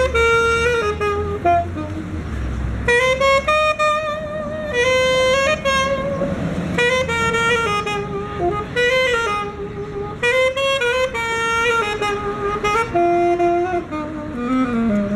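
Solo saxophone playing a jazz melody in held, sliding notes.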